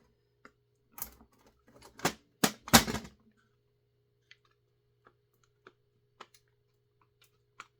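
Knocks and clatter of chainsaw housing parts being handled and worked loose during disassembly: a cluster of sharp knocks between about one and three seconds in, the loudest near three seconds, then a few faint scattered ticks.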